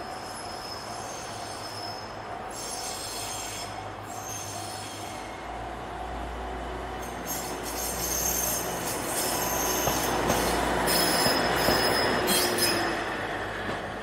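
DD603 diesel locomotive running light past a level crossing: its low engine rumble and wheel noise build to a peak as it passes, then die away near the end. A level-crossing alarm bell rings steadily throughout.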